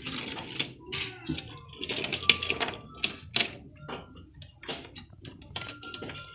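Toys being handled: an irregular run of clicks, taps and clatters.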